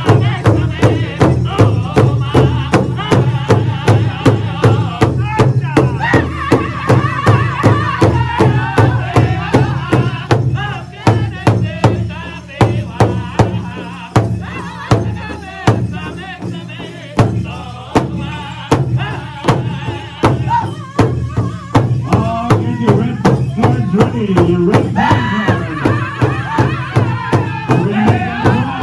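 Powwow drum group: a large drum struck in a steady, even beat, with voices singing over it.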